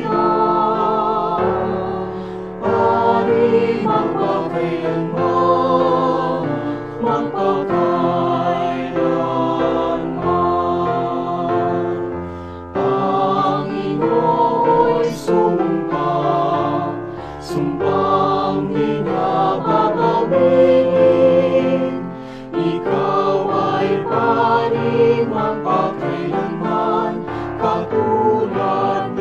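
A choir singing over musical accompaniment, in sustained phrases with short breaks between them.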